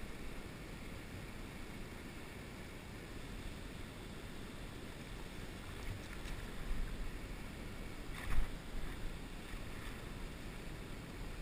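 Steady rushing of shallow river current around the wader's legs, with low wind rumble on the microphone. Two brief louder bumps come about six and eight seconds in.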